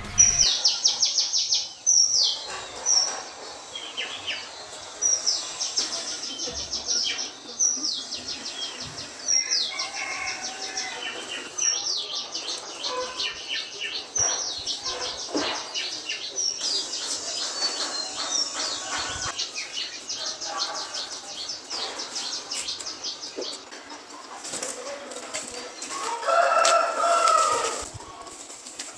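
A songbird singing a fast, high trill that starts sharply and drops in pitch, repeated every second or two. A louder chicken call comes near the end.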